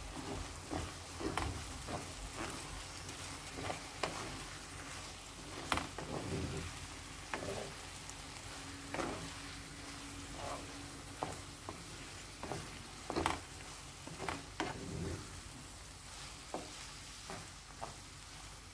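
Wooden spoon stirring coarse bulgur into a hot tomato-paste and vegetable sauce in a coated pot, with irregular scrapes and knocks against the pan over a steady sizzle from the pot.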